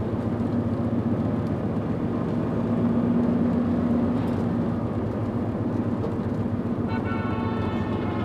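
Car driving along a multi-lane road, heard from inside the cabin: steady engine and tyre noise with a low hum. A brief higher-pitched tone joins near the end.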